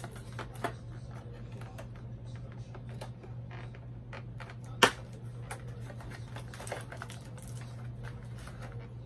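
Cardboard doll box being handled and opened: irregular light clicks, taps and scrapes of card, with one sharp, much louder click about five seconds in. A steady low hum runs underneath.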